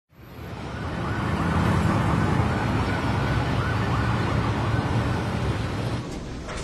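City traffic noise with a siren wailing up and down about once a second, fading in from silence.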